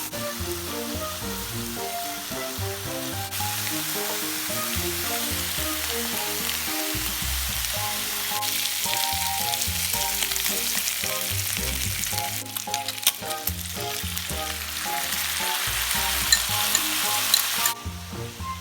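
Food sizzling steadily in a hot frying pan, with scattered clicks and a few sharp pops in the second half. The sizzle cuts off suddenly near the end.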